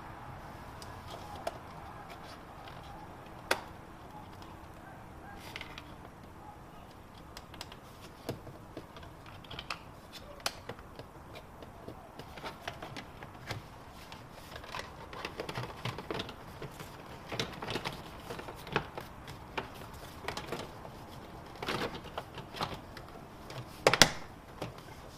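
Scattered small clicks and taps of hands working on car wiring and plastic trim pieces, sparse at first and busier in the second half, with one sharp snap near the end.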